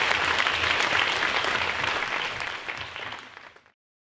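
Audience applauding, a dense patter of many hands clapping that dies away and cuts off to silence about three and a half seconds in.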